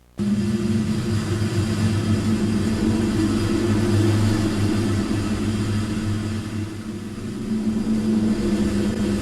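A loud, harsh droning noise cuts in suddenly and runs on steadily: a deep hum under a hiss.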